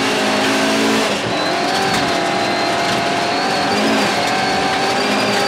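Rally car engine held at high, nearly steady revs, heard from inside the cabin over the hiss of tyres on gravel, with a brief dip in pitch about four seconds in.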